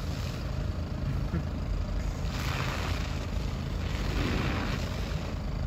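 Steady low rumble of an idling motorboat engine, with two short rushes of hiss about two and four seconds in.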